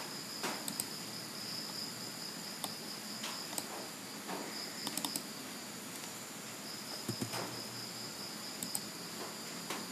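Scattered computer keyboard keystrokes and mouse clicks, a few at a time, over a steady high-pitched whine in the background.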